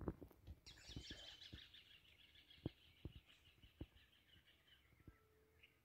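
A bird's faint call: a rapid string of high chattering notes lasting about four seconds, with a few scattered soft clicks.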